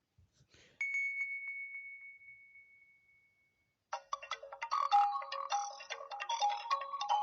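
HTC Wildfire S smartphone speaker playing tone previews. After a few faint clicks comes a single high ding that rings out and fades over about three seconds. About four seconds in, a quick, bright melodic ringtone starts.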